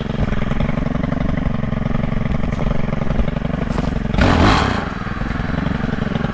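Stihl FS 131 brush cutter with a metal saw blade, its small 4-MIX engine running steadily at low revs, then revving up briefly about four seconds in.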